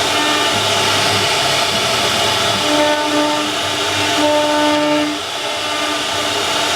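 Wood CNC router running and cutting: a loud, steady machine noise. A whining tone from the spindle comes in twice, about three seconds in and again about four and a half seconds in.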